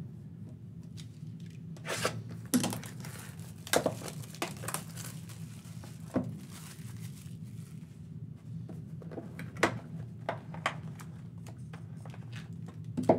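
Cellophane shrink wrap being torn off a sealed box of trading cards and crinkled, in sharp bursts, with a few knocks of the cardboard box and pack being handled. A steady low hum runs underneath.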